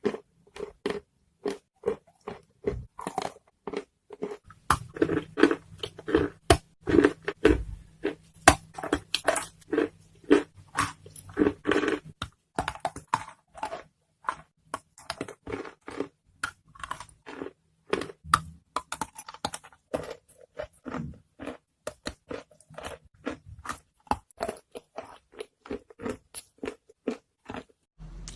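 Wet chalk being bitten and chewed close to the microphone: a quick, steady run of sharp crunches, several a second.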